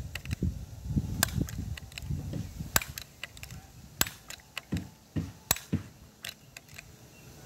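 Sharp clicks and knocks from a BB gun being handled and worked, the strongest about every second and a half, with duller low thumps between.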